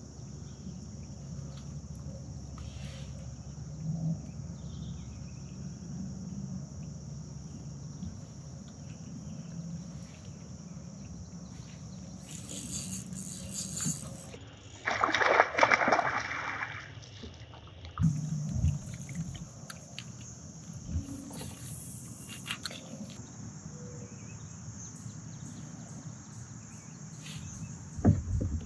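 Steady high chirring of insects over quiet river ambience, broken about halfway by two or three seconds of loud water splashing.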